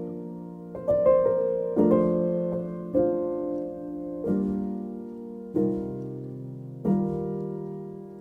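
Slow background piano music: chords struck every second or so, each one ringing and fading before the next.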